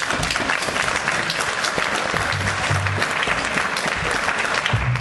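Church congregation applauding steadily, the clapping thinning out near the end.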